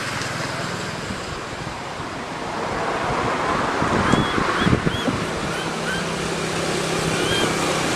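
Steady rush of wind on the microphone, with a few short high chirps in the second half.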